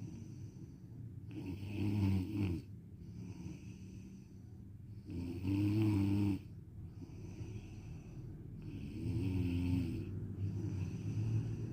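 A sleeping person snoring, three snores about four seconds apart, each a pitched drone whose tone changes from one breath to the next.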